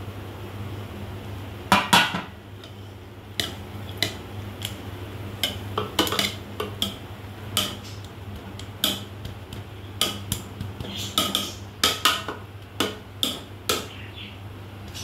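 A perforated steel skimmer scraping and clinking against the metal cooking pot as it turns over cooked rice, in irregular knocks roughly every half second to second, the loudest about two seconds in. A steady low hum runs underneath.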